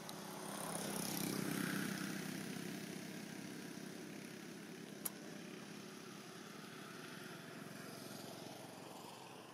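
A motor vehicle's engine running, growing louder about a second in and then slowly fading, with one sharp click about halfway through.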